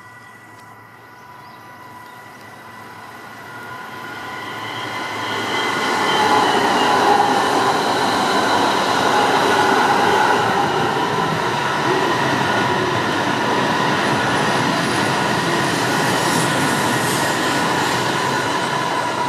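Coupled E3 series Komachi and E5 series Hayate Shinkansen train passing without stopping. A rushing noise builds over the first six seconds and then stays loud as the cars go by, with several steady high whining tones over it.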